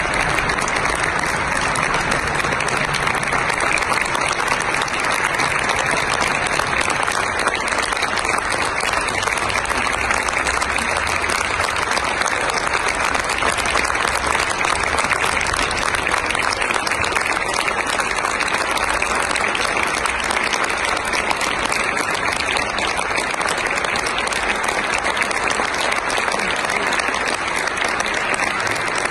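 Audience applauding steadily, a long, even ovation with no music.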